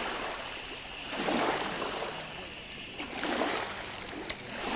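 Small waves lapping against the shore, each one a soft splash that swells up and dies away, coming again every second and a half to two seconds.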